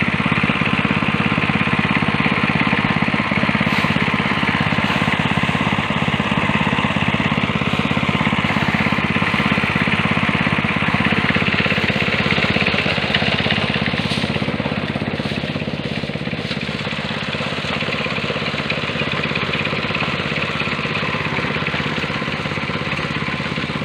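A small engine running steadily, loud and continuous, easing slightly about two-thirds of the way through.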